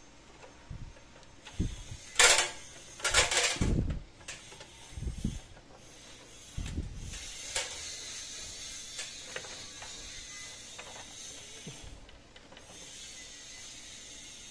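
Clicks, rattles and knocks of cable connectors and wires being handled, with a burst of louder clattering about two to four seconds in. After that comes a steadier hiss with a few light ticks.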